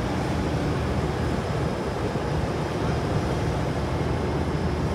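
Diesel engine of a Liebherr 984 crawler excavator running steadily with a low drone.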